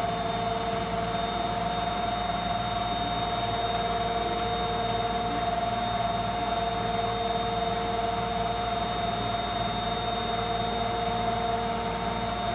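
Indesit front-loading washing machine spinning at 1200 rpm: a steady motor whine over the rushing hum of the fast-turning drum, holding an even speed throughout.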